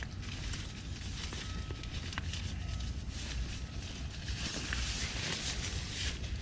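Nylon bivy sack fabric rustling and scraping as it is handled while the tent pole is pushed through its tight sleeve, getting louder about four seconds in, over a low steady rumble.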